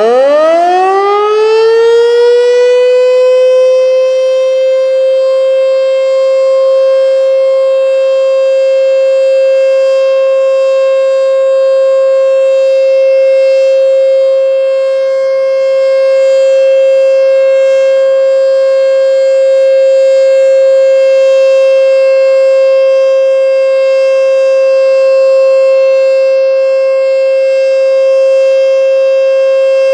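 ASC T-121 outdoor warning siren winding up, its pitch rising quickly over the first couple of seconds, then holding one loud steady tone: the steady Alert signal.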